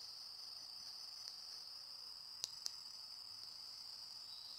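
Faint, steady high-pitched chorus of insects chirring, with two sharp clicks in quick succession a little past halfway.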